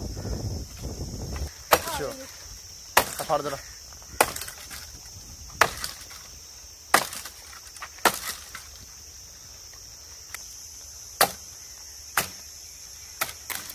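Small hatchet chopping cut tree branches: about nine sharp blows, roughly a second apart, with a pause of a couple of seconds in the middle.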